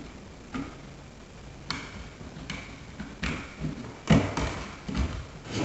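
Cable being worked through a cut-out in drywall: a string of separate light taps and clicks, with a louder knock about four seconds in.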